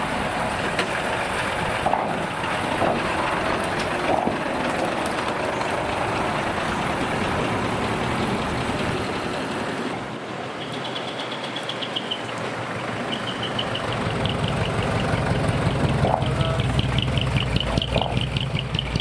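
Heavy diesel trucks driving slowly past. About halfway through, a decorated dekotora truck approaches, and its diesel engine grows louder, with a rhythmic low pulse, as it pulls in close near the end.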